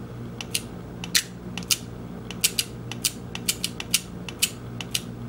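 Electromagnetic flip-digit display segments clicking in quick, irregular runs as the minute digits step forward again and again. A steady low hum sits underneath.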